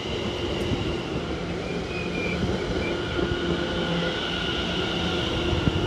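London Overground electric multiple unit moving away along the platform: a steady rumble of wheels on the rails, with the traction motors giving a few held tones that step in pitch.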